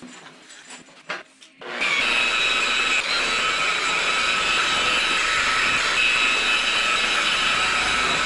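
Makita rotary polisher with a foam buffing pad starting up about two seconds in, then running steadily with a high motor whine while it cuts and buffs fresh paint on a steel boot lid. A few light handling knocks come before it starts.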